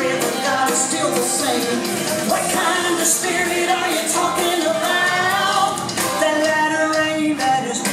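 Pop song with a singer over a steady drum beat, played as line-dance music.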